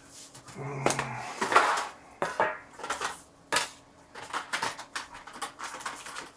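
Small metal paint tubes being rummaged through and set down on a tabletop: a run of sharp clicks and knocks, with a brief rustle.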